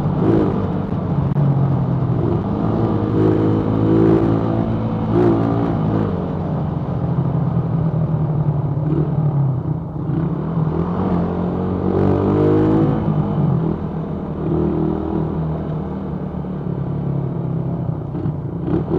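Motorcycle engine running under way, its note rising and falling several times as the bike speeds up and eases off.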